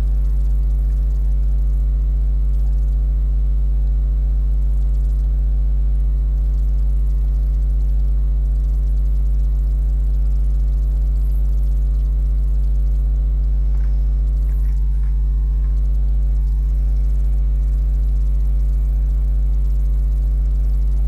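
Steady electrical hum at the 50 Hz mains frequency, with a ladder of evenly spaced overtones above it. This is the kind of mains interference or ground-loop hum that a recording chain picks up.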